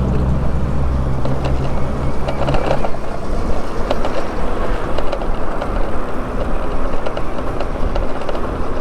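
Wind rushing over the microphone and road noise while riding through city traffic, with a low engine hum from a nearby vehicle during the first couple of seconds.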